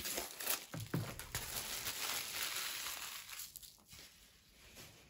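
Clear cellophane wrapping crinkling and crackling as it is pulled off a cardboard box and crumpled, dying away about four seconds in.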